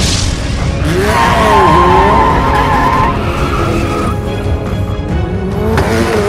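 Car tyres squealing and engines running over action background music. A long squeal starts about a second in and lasts about two seconds, and another rising screech comes near the end.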